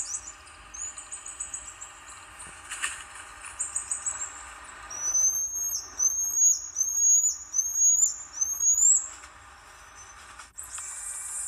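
Marmosets calling with very high, thin whistles. There are rapid pulsed trills first, then a run of rising whistled calls from about five seconds in to about nine seconds, and another quick trill near the end.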